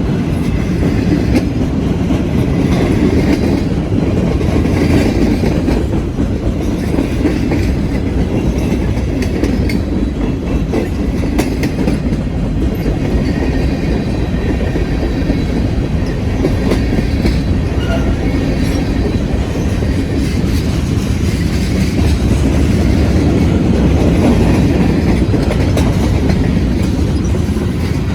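Freight train cars rolling past at close range: a steady, loud rumble of wheels on the rails with a few sharp clicks around the middle.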